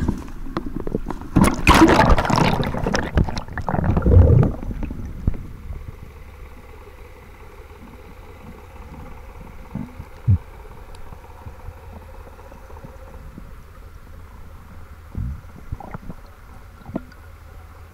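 Water splashing and churning at the surface as a diver enters the sea beside a boat. About five seconds in, it gives way to the muffled, steady ambience heard underwater, with a faint steady hum and a few soft knocks.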